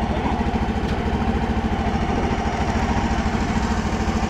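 Small generator-type petrol engine driving a river ferry, running steadily with an even, rapid throb.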